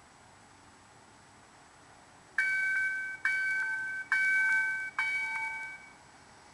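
Warning bell of a light rail train approaching a grade crossing, struck four times at a bit under one strike a second, each ring fading away before the next.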